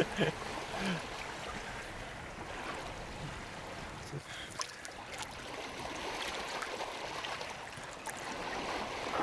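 Shallow sea water lapping and trickling steadily, with a few small drips and splashes about halfway through, as a sea trout is held up and eased back into the water.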